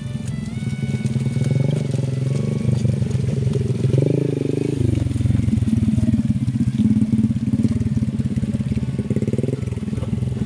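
Small motorcycle engine running under load as the bike, laden with sacks of corn, rides a muddy field track; the engine speed rises and shifts about four to five seconds in.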